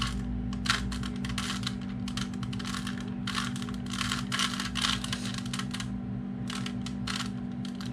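Rubik's Cube being turned by hand: quick, irregular plastic clicks and clacks of the layers twisting, in clusters, over a steady low hum.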